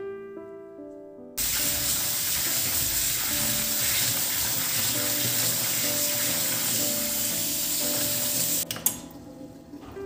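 Tap water running hard into a stainless steel sink through a mesh strainer of grains being rinsed by hand. It starts about a second and a half in and is shut off with a click near the end.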